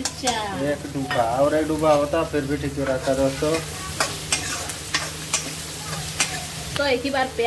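Chopped onions and green chillies being stirred in hot oil in a steel wok: a spoon scrapes and clicks against the pan over a light sizzle, with sharper clicks in the second half.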